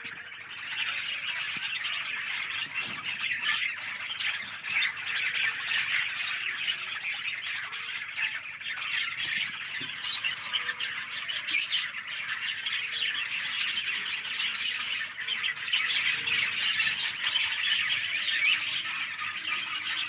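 A flock of budgerigars chattering and squawking, many birds calling at once in a dense, continuous babble.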